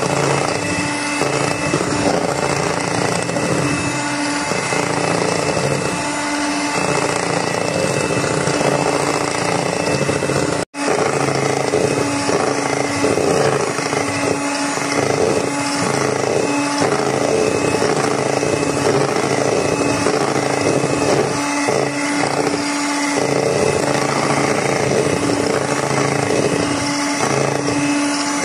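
Electric hand mixer running steadily, its beaters whipping cream in a bowl, with a constant motor whine and whir. The sound cuts out for an instant about eleven seconds in.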